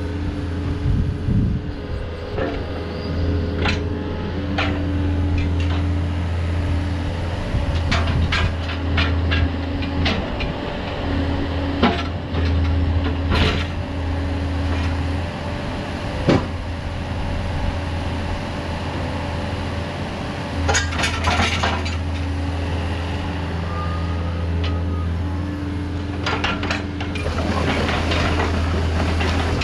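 Yanmar VIO50-U mini excavator's diesel engine running steadily while the boom and upper structure are worked. The engine note changes in strength in stretches as the hydraulics take load, and sharp knocks come every few seconds from the working machine.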